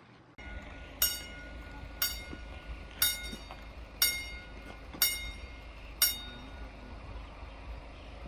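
Railway level-crossing warning bell striking six times, about once a second, each strike ringing briefly, then stopping, over a steady low rumble. The bell warns that a train is approaching and the crossing is closing.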